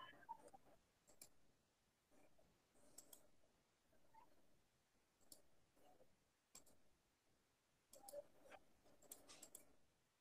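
Near silence: faint, irregular clicks over quiet room tone.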